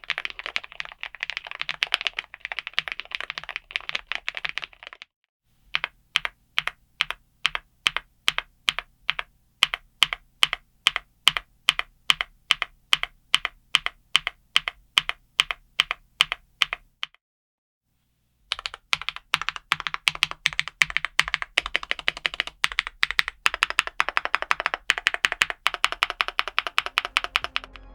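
GravaStar Mercury K98 Pro, a gasket-mounted aluminium mechanical keyboard with GravaStar Custom UFO linear switches, being typed on fast. For a stretch in the middle single keys are struck one at a time, about three a second, with a short pause before and after.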